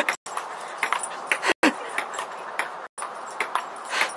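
Light, quick taps and clicks of a ping-pong ball bouncing on a table tennis table as dogs knock it about, over a steady hiss. The sound cuts out completely for a moment about every second and a half.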